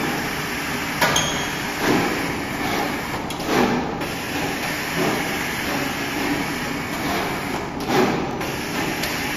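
Steady machine and ventilation hum of an electronics assembly floor, with a few short knocks scattered through it, about four in all.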